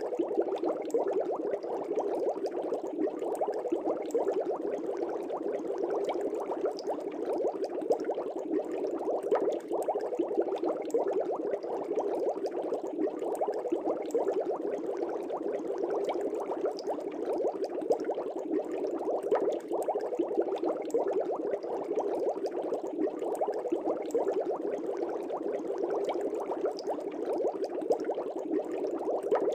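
Aquarium air bubbles streaming steadily through the water, a dense continuous bubbling and gurgling with many small pops.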